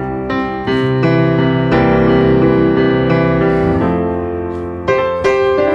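Background piano music, slow held chords changing every second or so.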